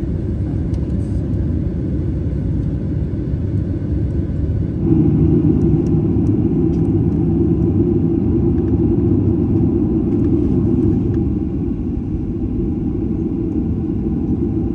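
Steady low rumble of a Boeing 737-800's cabin as it taxis, with its CFM56 engines at idle. The rumble grows louder about five seconds in.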